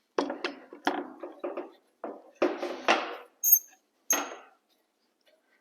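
A series of about a dozen irregular knocks and taps on wood as a piece is knocked into place, with a couple of sharper metallic clinks near the end.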